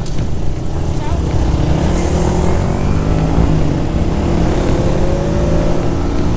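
Motorcycle engines running, with the engine note rising slowly in pitch through the middle as a bike accelerates.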